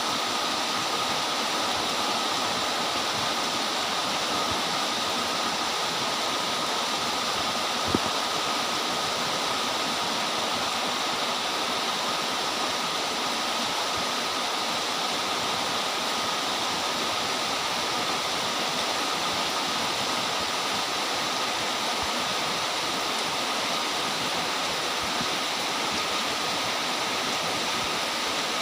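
Very heavy, torrential rain falling in a steady, unbroken rush, with one sharp click about eight seconds in.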